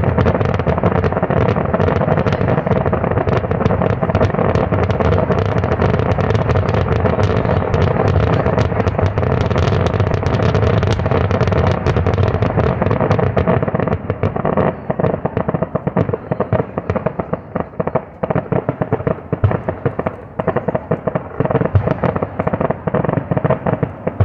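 Fireworks display: a dense, continuous run of aerial shell bursts and crackle that thins after about fourteen seconds into separate bangs, then dies away at the very end.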